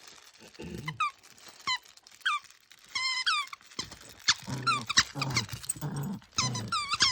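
A squeaky dog toy squeaking over and over in quick, irregular bunches as a dog chews it. Between the squeaks there are a few lower, rough sounds.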